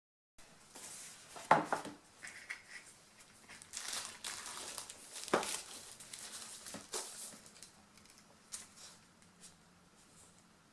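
Tablet box and its plastic wrapping being handled and opened: crinkling and rustling with a few sharp knocks, the loudest about a second and a half in and another about five seconds in. The handling thins out over the last few seconds.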